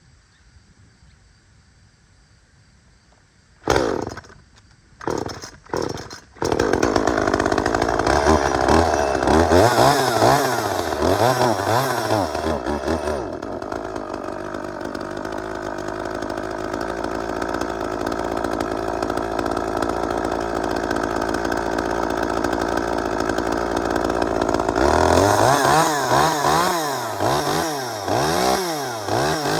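Two-stroke top-handle chainsaw being pull-started: a few quick pulls on the starter cord, then the engine catches about six seconds in. It runs on at high speed, its pitch rising and falling as the throttle is worked, holding steadier through the middle.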